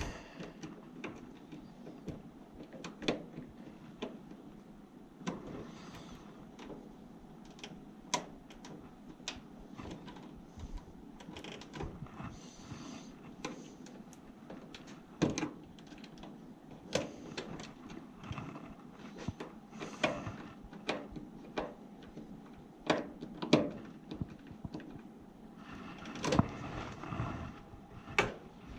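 Irregular clicks, taps and knocks of hands and tools working at an equipment panel, with brief stretches of rustling; a few sharper knocks stand out in the second half.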